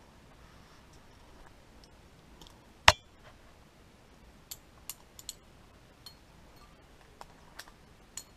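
Climbing hardware clinking as it knocks against itself and the rock: one loud, sharp metallic knock about three seconds in, then a scattered run of lighter clicks and clinks.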